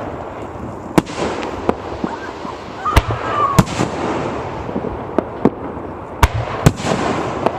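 Fireworks going off: sharp bangs at irregular intervals, about five loud ones and several smaller, over a continuous crackle and rumble.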